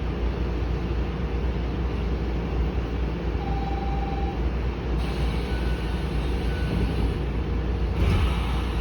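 Sanyo 6000 series electric train standing with its doors in use: a steady low hum, a short single-pitch door-chime tone about three and a half seconds in, two fainter higher tones a few seconds later, and a brief burst of noise near the end.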